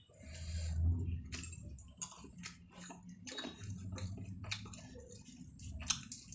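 A person chewing a mouthful of rice and curry close to the microphone, with wet mouth smacks and many short sharp clicks.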